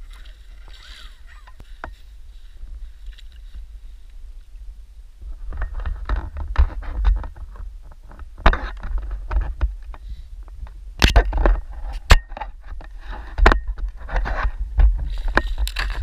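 Handling knocks, clatters and scrapes, with water splashing, around a small RC fishing boat, over a steady low rumble. The first few seconds are quieter; the knocks come thick and fast from about five seconds in.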